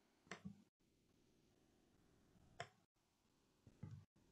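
Near silence, with a few faint short clicks spread through it.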